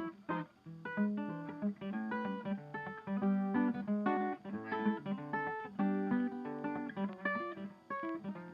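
Background music: a fast plucked acoustic guitar tune.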